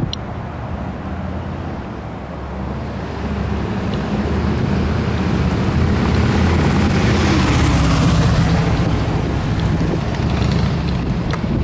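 A car passing on the street, its engine and tyre noise swelling to loudest about eight seconds in and then easing off, over low wind rumble on the microphone.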